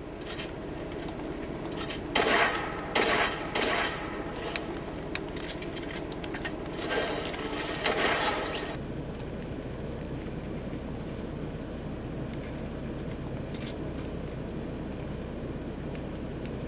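Shooter video game sound effects played through a TV: a few loud bursts of gunfire and impacts in the first half. From about halfway on there is only a steady low hum.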